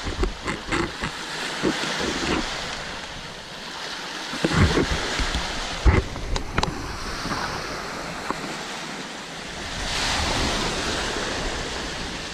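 Small waves breaking and washing up a stony beach, with wind buffeting the microphone. A couple of sharp knocks come about four and a half and six seconds in, and the wash of a breaking wave swells about ten seconds in.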